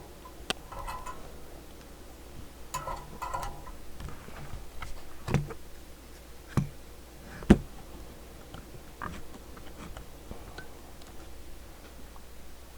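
A few scattered sharp clicks and taps of small hand tools on a circuit board during desoldering, the loudest about seven and a half seconds in, over a low steady hum.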